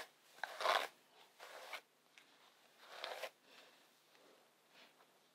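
Hands running through a long body-wave wig's hair, a few faint rustling swishes.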